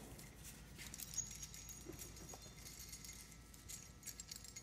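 Faint scattered clicks and light metallic clinks of clamps being handled and adjusted along a glued canoe chine.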